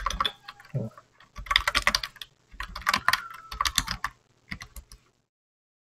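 Typing on a computer keyboard: quick runs of keystrokes that stop about five seconds in.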